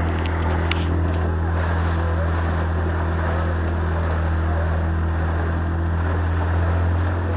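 Small open boat's motor running at a steady speed, a constant low drone, with wind and water rushing past the hull.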